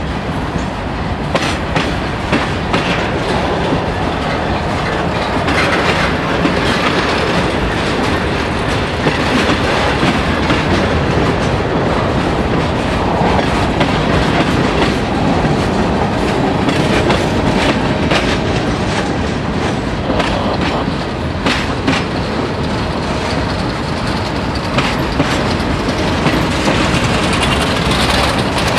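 Freight cars rolling past at trackside: a steady rumble of steel wheels on rail, with scattered clicks as wheels pass over rail joints.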